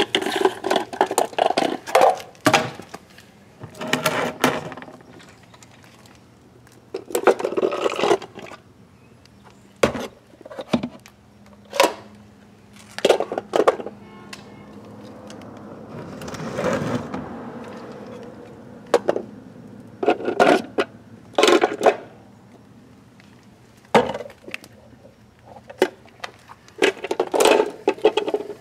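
Small plastic toy wheelie bins knocking, clicking and scraping on concrete as they are handled and set down, in scattered clusters a second or two apart.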